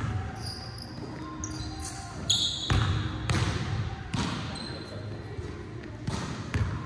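A basketball bouncing on a hardwood gym floor at an uneven pace, each bounce echoing in the large hall, with short high sneaker squeaks in the first couple of seconds.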